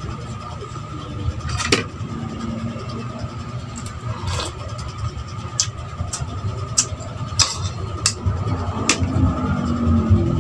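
A spoon clicking against a ceramic bowl and plate about eight times while someone eats, over a steady low hum.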